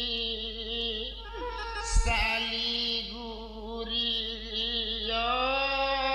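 Rabab pasisia music: long held, wavering notes with a slide down about a second and a half in and a slow rise in pitch from about five seconds in. A short thump about two seconds in.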